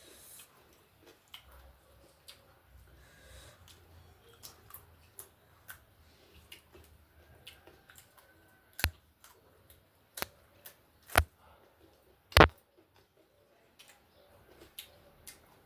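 Close-miked mukbang eating sounds: soft, irregular chewing and mouth noises with scattered sharp clicks, four louder clicks coming in the second half.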